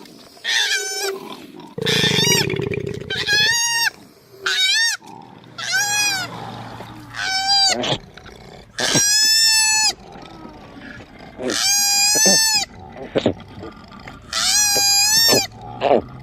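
Koala calling: a string of about nine high-pitched, wavering wails, each half a second to a second and a half long, with a lower, rougher grunting call overlapping them about two seconds in.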